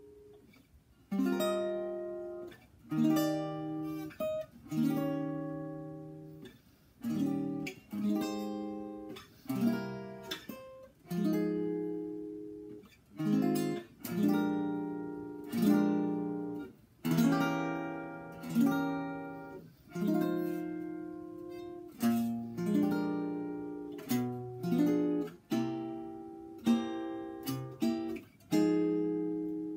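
1934 Epiphone Royal archtop guitar played acoustic with bronze strings: solo chord-melody playing, full chords struck one after another and left to ring and fade, rich in overtones.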